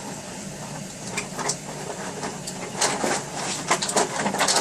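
Small containers and kit items being handled and set down on a table: a run of light clicks and knocks that comes thicker in the second half.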